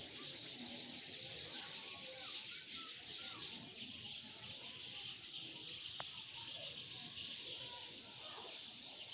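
A dense, continuous chorus of many birds chirping together, with a few short gliding calls standing out and one sharp click about six seconds in.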